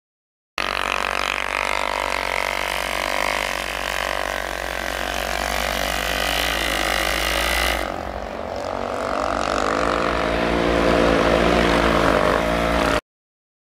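Side-by-side UTV engine running hard as it spins through deep snow. After a cut about eight seconds in, an ATV engine takes over, getting louder near the end.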